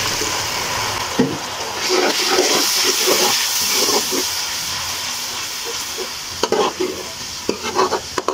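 Onion-tomato masala sizzling in a hot metal pan just after water is poured in, while a steel ladle stirs and scrapes through it; a few sharp knocks of the ladle on the pan near the end.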